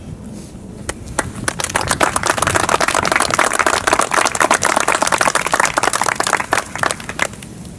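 Applause from a small group of people clapping, starting about a second in, building to a dense patter and thinning to scattered claps near the end.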